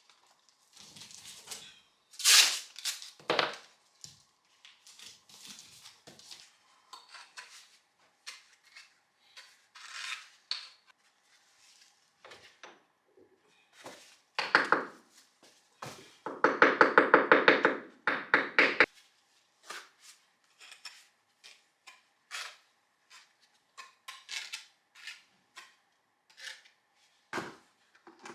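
Hard objects being handled and set down: scattered knocks and clinks, with a fast rattling run lasting about two seconds past the middle.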